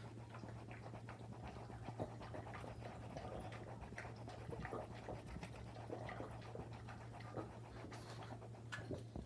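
A pug panting faintly, with soft breathy puffs, over a steady low hum.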